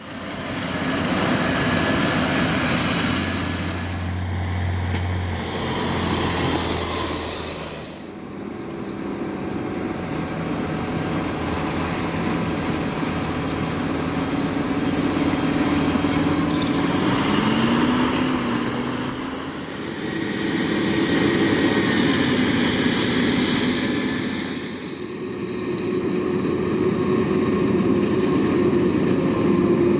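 Heavy farm machinery working: the engines of a forage harvester and tractors running under load, changing abruptly between cut-together shots, with one engine note rising a little past halfway.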